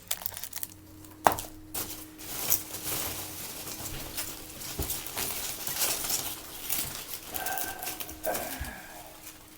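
Packing paper and plastic wrapping rustling and crinkling with scattered knocks, including a sharp click about a second in, as a potted orchid is unwrapped from its shipping box.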